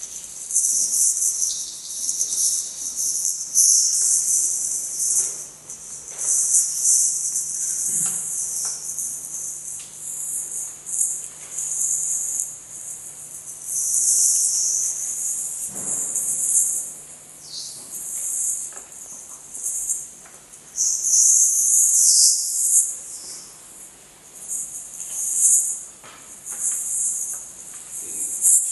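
Live electroacoustic texture from a sound costume: a high, hissing rattle like shakers or crickets, swelling and fading every second or two, over a faint steady low hum.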